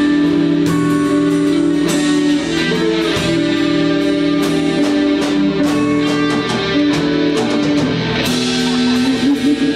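Live band music led by guitar, with sustained notes and sharp percussive hits recurring about every half second to a second.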